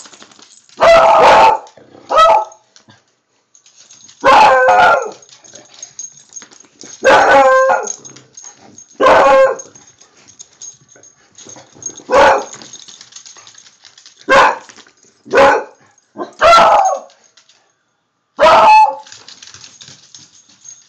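Beagles barking: about ten loud barks spaced a second or more apart, several drawn out to most of a second.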